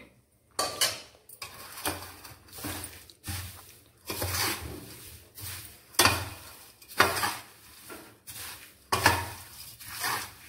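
Perforated steel spatula stirring and tossing dry-roasted poha (flattened rice) in a metal kadhai, scraping and knocking against the pan in repeated strokes about once a second, as the chivda is roasted until crisp.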